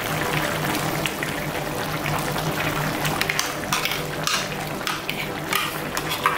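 Chicken curry simmering in a clay pot: a steady bubbling hiss with scattered small pops, while thick ground coconut paste is poured in.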